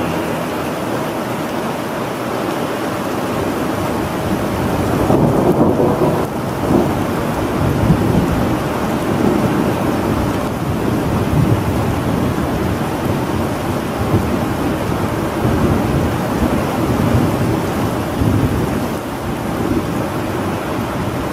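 Steady rain with rolling thunder, the rumble swelling about five to eight seconds in.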